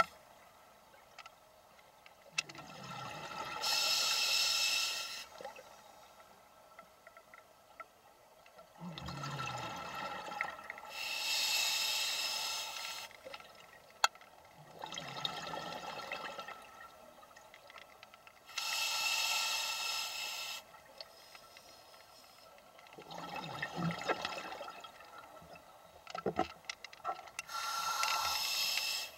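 Scuba diver breathing through a regulator underwater: loud hissing breaths alternate every three to four seconds with bubbling, gurgling exhaust bursts, about four breaths in all.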